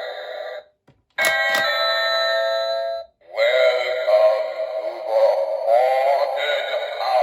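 Electronic doorbells sounding one after another. About a second in, a click starts a steady electronic chime tone held for about two seconds before it cuts off. After a short gap another doorbell starts a warbling electronic tune.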